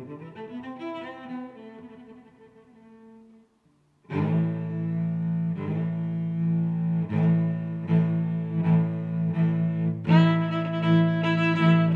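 Background music with low bowed strings: one piece fades out, and after a brief silence a louder piece starts about four seconds in with held low notes and regular strokes, swelling near the end.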